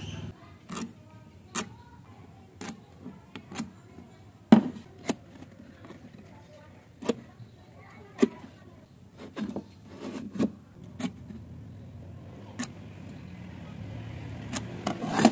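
Scattered clicks and light knocks of a steel combination square and marking tool against a wooden beam as a joint is marked out, irregular and a second or so apart, the loudest about four and a half seconds in and near the end. A faint low rumble builds toward the end.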